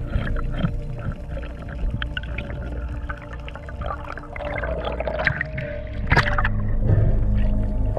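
Underwater water noise at the camera: gurgling and bubbling with scattered clicks over a steady low hum, and a brief splash about six seconds in as the camera breaks the surface.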